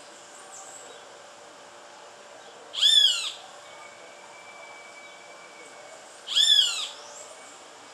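Hawk giving two loud screaming calls about three and a half seconds apart, each about half a second long, rising and then falling in pitch.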